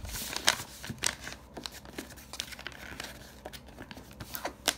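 A sheet of paper rustling and crackling as it is folded and its creases are pressed flat with the hands, in an irregular run of soft crinkles and sharper crackles. The sharpest crackles come about half a second in and near the end.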